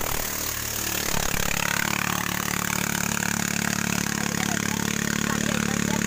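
An engine running steadily with a fast even pulse, coming in about a second in and holding at one pitch.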